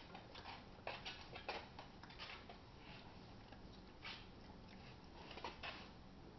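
A sleeping mini pig making faint, irregular soft snuffles and small mouth clicks.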